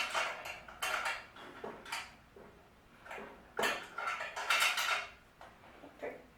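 Metal parts and tools clinking and clattering in irregular bursts, with a ringing metallic edge, as the machine is taken apart.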